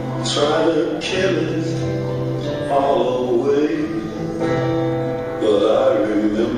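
A boy singing while strumming a small acoustic string instrument.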